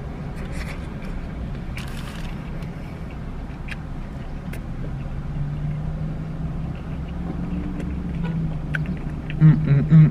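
A man chewing a mouthful of burrito, with a short paper-wrapper rustle about two seconds in and a few small clicks, over a steady low hum inside a car's cabin. A man's voice starts near the end.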